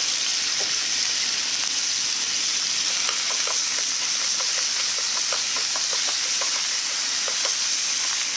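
Pre-seasoned beef slices sizzling in sesame oil in a non-stick frying pan. From about three seconds in there are light clicks as wooden chopsticks pull the meat apart.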